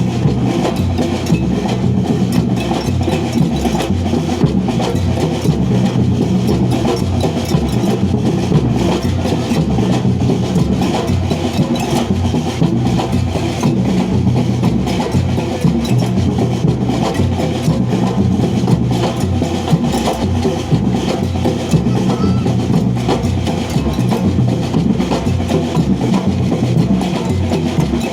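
Street musicians playing drums together in a steady, repeating rhythm.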